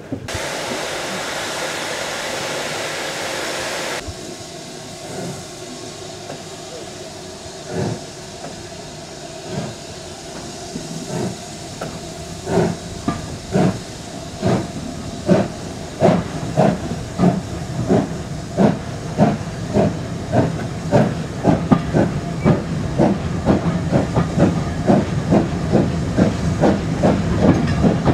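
Steam locomotive pulling a train away from a station. A loud steady hiss of steam for the first few seconds cuts off, then the exhaust chuffs start slow and irregular and quicken to about two or three beats a second as the train gathers speed.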